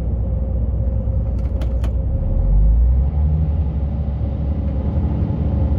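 Heavy truck's engine running with a steady low drone, heard from the cab while driving a winding mountain road. It swells louder briefly about halfway through.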